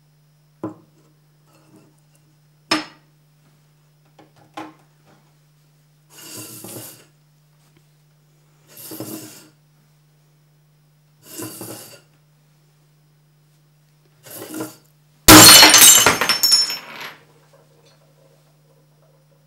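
A china teacup is knocked on a wooden tabletop a few times, followed by four short rasping sounds at even intervals. Then the cup smashes with a loud crash, and its shards scatter and tinkle across the table.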